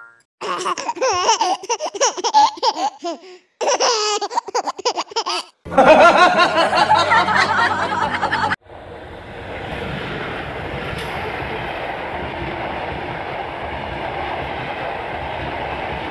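A pitched-up, wobbling laughter sound effect comes in bursts for about eight seconds, the last burst the loudest. It cuts off suddenly, and a passenger train passing close takes over with a steady rumble of its wheels on the rails.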